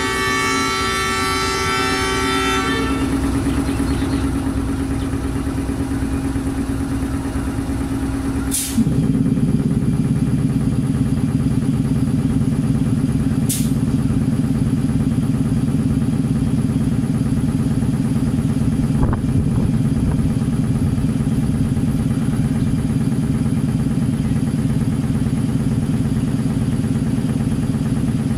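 ZCU-20 diesel-electric locomotive engine running steadily at a standstill, with a horn blowing on one steady note for the first two or three seconds. About nine seconds in there is a sharp click and the engine steps up to a louder, deeper running note, which then holds steady; another short click follows a few seconds later.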